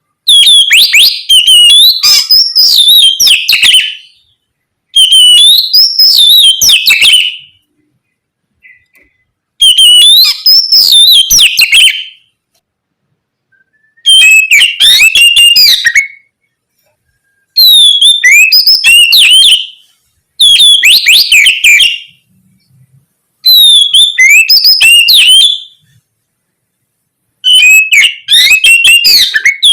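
Oriental magpie-robin (kacer) singing a loud, full song of rapid whistled notes in phrases of about two to three seconds, eight phrases with short pauses between them.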